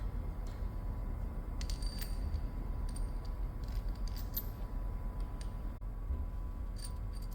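Light metallic clinks and taps from steel tools and parts being handled, scattered in a few small clusters, over a steady low workshop hum.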